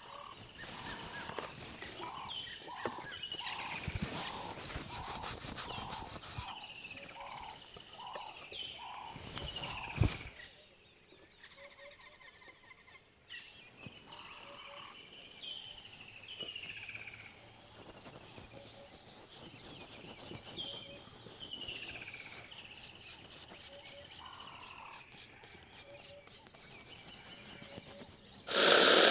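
Birds calling outdoors: a call that slides downward repeats every second or two, and during the first ten seconds a steady pulsing call repeats about twice a second. Light clicks sound throughout, with a sharp knock about ten seconds in, and a loud steady rushing noise starts just before the end.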